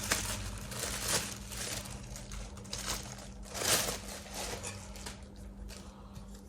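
Rustling and light clicks of perfume-holder pieces being handled during assembly, with a louder rustle about three and a half seconds in.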